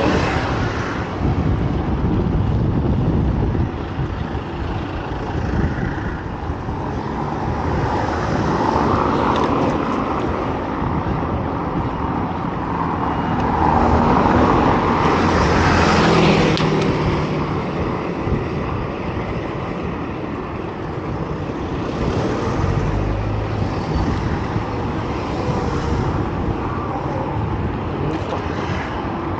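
Urban street traffic: cars and other motor vehicles passing with engine and tyre noise, swelling louder twice as vehicles go by.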